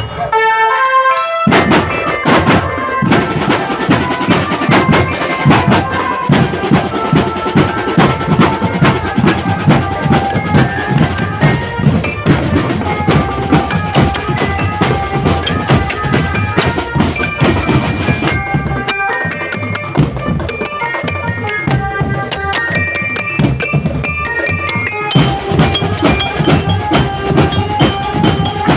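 Marching drum band playing: drums beating a fast, dense rhythm under a melody on glockenspiel-like bells. It breaks off briefly about a second in, then resumes, and the drums thin out for a few seconds near two-thirds of the way through before coming back in.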